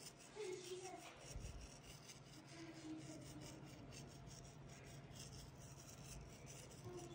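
Near silence: quiet kitchen room tone with faint, distant voices.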